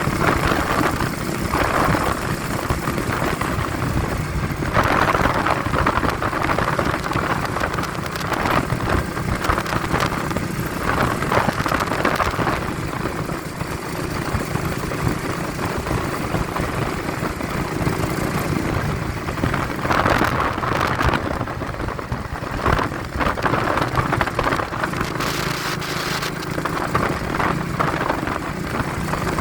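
A vehicle's engine running steadily on the road, under gusty wind buffeting the phone's microphone, which surges and fades every few seconds.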